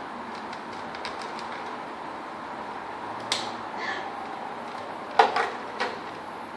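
A few sharp clicks and knocks of a box and its packaging being handled, the loudest about five seconds in, over a steady hiss.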